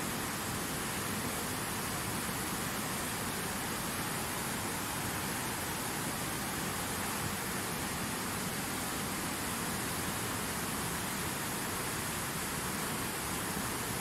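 Steady rushing of a fast whitewater mountain river churning over rocks.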